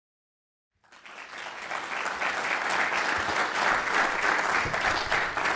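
Silence for about the first second, then an audience applauding steadily.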